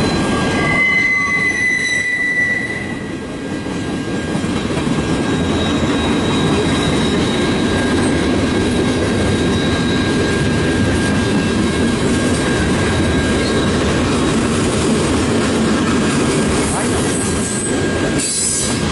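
Cars of a long CN freight train rolling past on the rails, a steady loud rumble with the clack of the wheels. A high wheel squeal rings out for about two seconds near the start.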